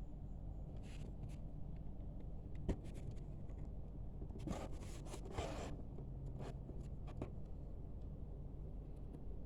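Handling noises: scattered light clicks and a brief rustle or scrape about four and a half to six seconds in, over a low steady hum.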